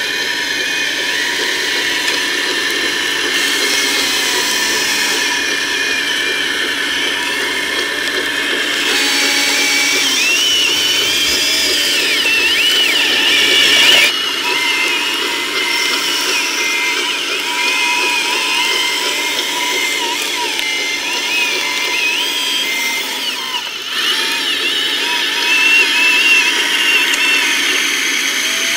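Small electric motors and gearboxes of radio-controlled construction models, such as a Liebherr crawler loader, whining steadily, with the pitch wavering up and down as the machines drive and work. The sound changes abruptly twice.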